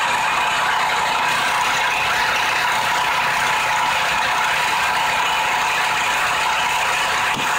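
The small gasoline engine of a Black Diamond 30-ton log splitter running steadily, a continuous mechanical noise with no break.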